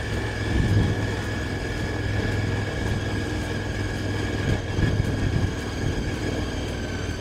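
Motorcycle riding at a steady cruise, its engine running with a steady whine over a low rumble, the whine dipping a little in pitch near the end.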